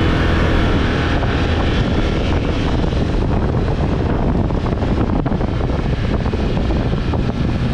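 UTV engine running as it drives over sand, with wind buffeting the microphone; a steady, loud mix of engine and rushing noise.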